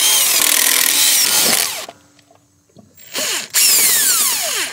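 Impact wrench running in bursts, spinning the lug nuts off a car's front wheel. One long run stops just under two seconds in, then two short runs follow near the end with a whine that falls in pitch.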